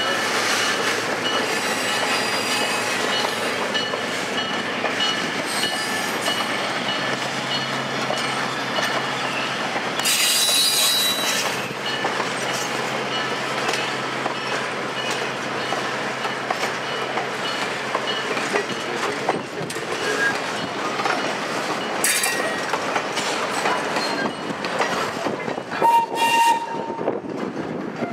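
Passenger cars of a train rolling past close by: steady wheel and rail noise, with sharp clicks as the wheels pass over rail joints and a thin squeal from the wheels.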